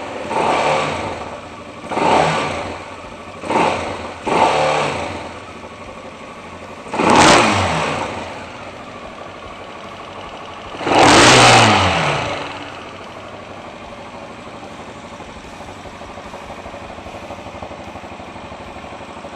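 Racer Panther motorcycle engine idling on a newly fitted carburetor with an accelerator pump, on its first run, blipped six times with the throttle, each rev falling back to idle; the last, about eleven seconds in, is the longest and loudest. After that it idles steadily.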